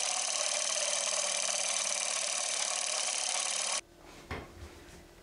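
Steady scratchy hiss that cuts off suddenly about four seconds in, followed by a few faint clicks and knocks.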